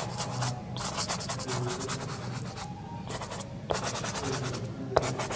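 A soft pastel stick scratching across sanded pastel paper in quick back-and-forth strokes, in several short runs with brief pauses, and a single click near the end.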